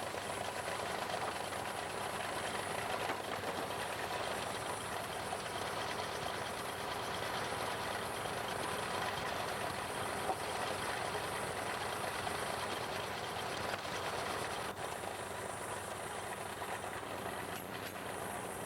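Steam sawmill running steadily, its steam engine driving the saw, with one short knock about ten seconds in.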